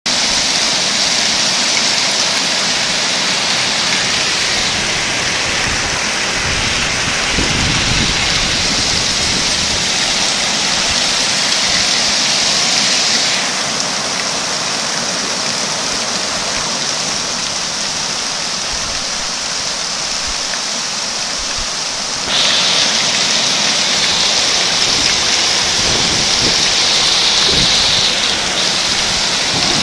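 Heavy rain pouring down with muddy floodwater rushing across a street, a steady loud hiss. The hiss dips about 13 seconds in and comes back louder about 22 seconds in.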